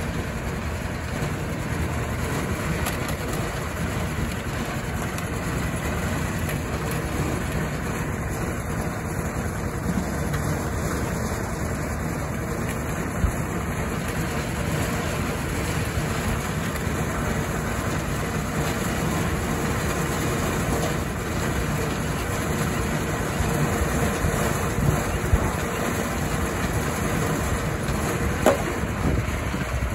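Engine-driven concrete mixer running steadily as its drum is tipped to pour concrete into a wheelbarrow, with a few sharp knocks near the end.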